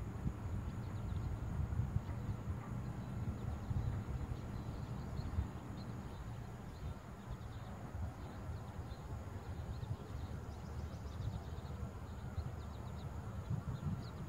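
Wind buffeting the microphone in uneven gusts, with faint bird chirps coming in a few quick runs in the second half.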